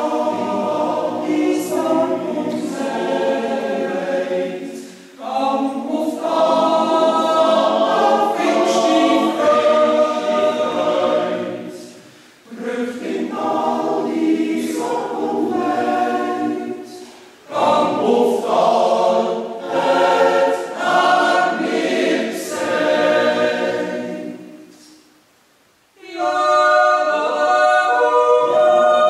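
Mixed Swiss yodel choir of men's and women's voices singing a cappella, in long phrases with short breaths between them. About 25 s in, a phrase dies away into a brief pause before the next one begins.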